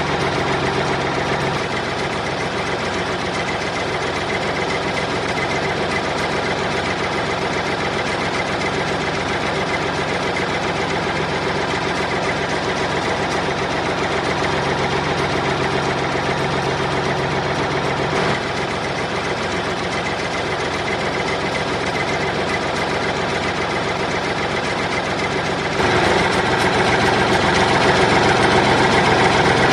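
Small motors running steadily with a continuous mechanical drone, a brief click about two-thirds of the way through, and a step up in loudness near the end.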